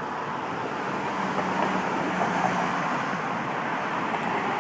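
Road traffic: a steady rush of vehicle noise that slowly grows louder, with a faint low hum for a couple of seconds in the middle.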